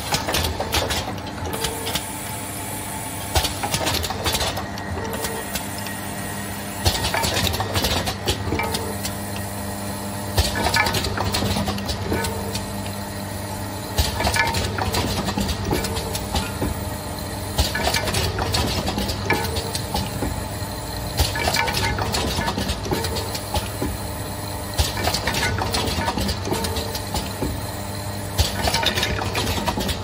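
A lip gloss tube filling, plugging and capping monoblock machine running. Its rotary turntable and air cylinders work in a steady cycle: a hum underneath, with clusters of metallic clatter and air hiss about every three and a half seconds.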